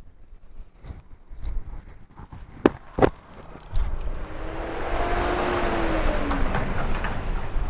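Two sharp clicks about a third of a second apart, then a motor vehicle going by: from about halfway a rushing engine noise swells and holds, with a low hum that slowly drops in pitch.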